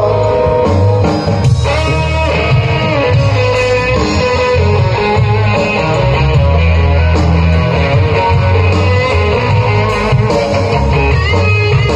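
Live rock band playing a loud instrumental passage: electric guitar lines over a heavy bass, with no singing.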